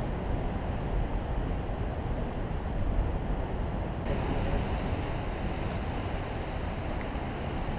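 Wind buffeting the microphone over the steady rush of ocean surf breaking on rocks; the hiss turns a little brighter about four seconds in.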